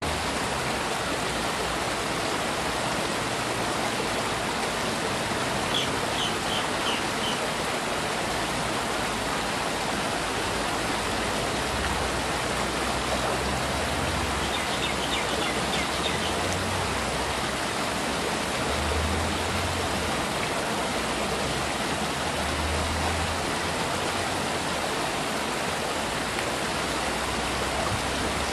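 Stream water flowing steadily, a constant rushing hiss of current. Two short runs of faint high chirps come through about six and fifteen seconds in.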